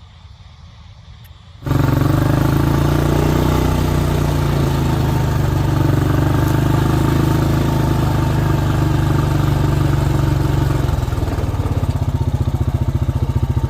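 Rice combine harvester running loud and steady, engine and machinery together. It cuts in abruptly about a second and a half in, and near the end it takes on a fast, even pulsing beat.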